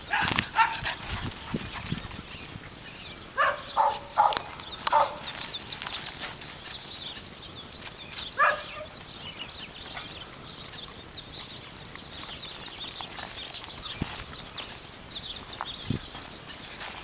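A dog barking: a short bark near the start, a quick run of four barks about three to five seconds in, and one more about eight seconds in, over faint footsteps on a dirt and gravel path.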